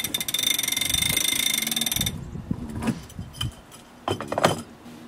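Self-tailing bronze sailboat winch being cranked with a winch handle: a fast, even ratcheting of its pawls that cuts off suddenly about two seconds in. A few knocks follow as the handle is lifted out and put away.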